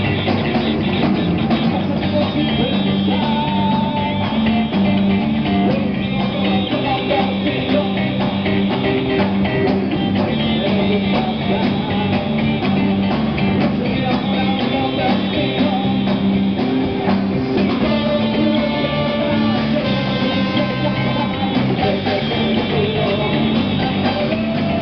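Live rock band playing: electric guitars and drum kit with a horn section of saxophone and trumpet, a steady loud groove.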